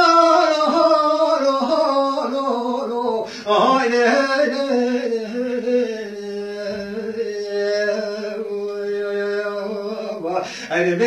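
A man singing solo, a wavering, ornamented vocal line without clear words that settles into one long held note in the second half.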